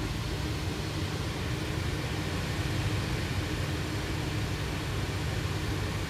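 Steady flight-deck noise of a Boeing 737 on final approach with landing gear down and flaps at 30: an even rush of air over a low rumble, with a faint steady hum.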